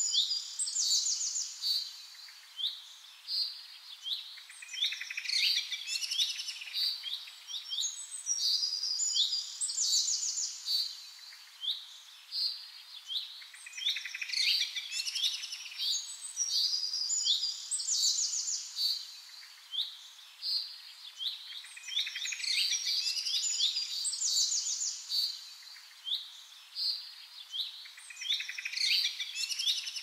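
Songbirds singing: a dense run of high chirps, trills and short varied phrases that swell and fade every few seconds over a faint steady hiss.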